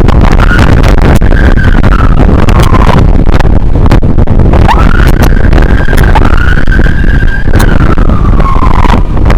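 Emergency vehicle siren wailing, its pitch rising and falling slowly, over loud wind buffeting and road rumble from the moving vehicle.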